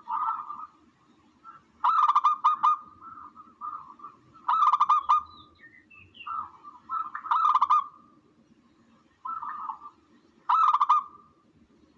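Recorded tukmo dove calls played as a hunting lure: a loud cooing phrase about every three seconds, with softer notes in between.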